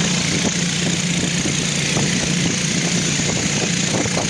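A motorboat's engine running at a steady pace, a constant low drone under an even hiss of wind and water.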